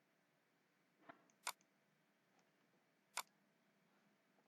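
Near silence broken by three faint computer mouse clicks: a light one about a second in, a sharper one just after, and another a little past three seconds.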